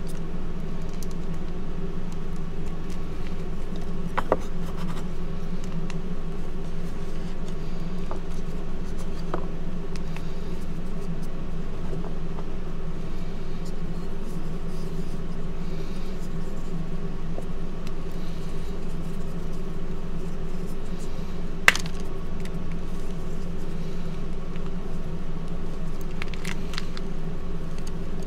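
Gym chalk blocks crumbling and crunching as hands squeeze and break them into powder: soft scattered crunches with a few sharper cracks, the sharpest about two-thirds of the way in. They sit under a steady mechanical hum, like a fan or appliance, that is louder than the chalk.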